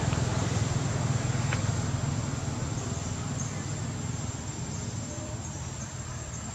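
Outdoor background noise: a steady low rumble that slowly fades, with a thin, steady high tone above it.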